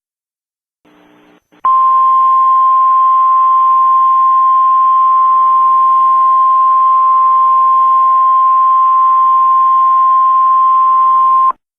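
NOAA Weather Radio warning alarm tone, sounded as a test of the station's public warning system: one long steady tone held about ten seconds over faint radio hiss, starting about two seconds in and cutting off sharply near the end.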